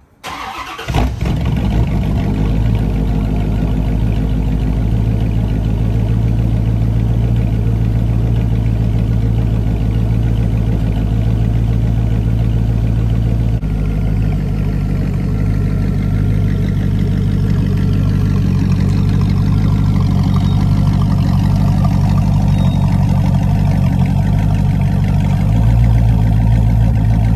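Corvette C4's West Racing 6.7-litre (409 cubic inch) V8 starting up, cranking briefly and catching about a second in, then idling steadily and loudly. Its sound changes slightly about halfway through and gets a little louder near the end.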